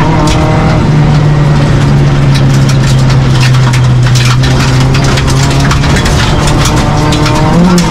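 Proton Neo rally car's engine heard from inside the cabin while driving at speed on a special stage, its note holding steady and slowly falling in pitch, then rising again near the end. Road noise runs underneath, with scattered clicks.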